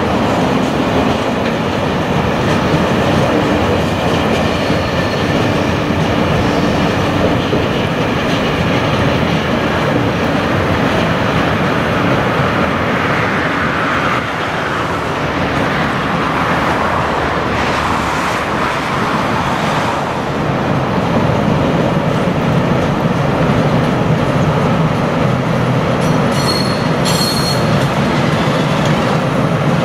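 Freight train wagons rolling past on the rails, a loud steady rumble, with brief high wheel squeals a few seconds in and again near the end.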